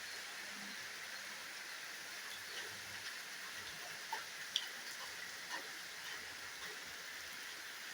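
Steady rush of a waterfall, an even hiss of falling water. Faint scattered ticks lie over it, and a single sharper one comes about halfway through.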